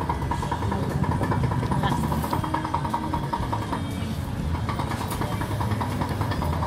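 Street traffic: vehicle engines running steadily, with the voices of other diners in the background.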